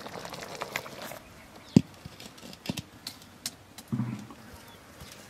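A metal kadai of curry is lifted off a clay stove and set down on a concrete floor. Scattered light clicks and knocks of the pan, the sharpest about two seconds in.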